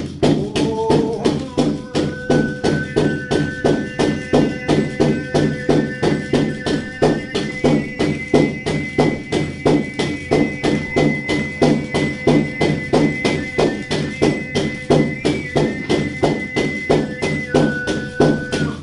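A Turkic shaman's frame drum (kam davulu) of stretched hide with iron pendants inside, beaten in a steady, even rhythm, the pendants jingling with each stroke. Over the drum runs a held sung drone whose high whistling overtone steps up about halfway through and drops back near the end.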